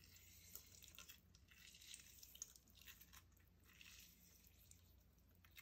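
Near silence with a few faint, scattered squishes and drips: a lime half squeezed by hand, its juice dripping into a stainless steel bowl.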